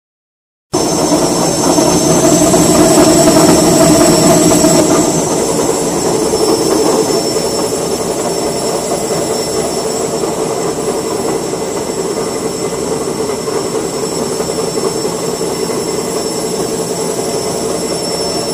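Flour roller mill running: a loud, steady machine drone with a high whine over it. It starts abruptly just under a second in, is loudest for the first few seconds, then settles to an even level.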